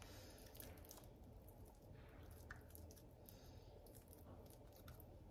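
Faint, soft squishing of mashed-potato dough pressed and folded in oiled hands as it is closed around grated cheese, with several brief squelches.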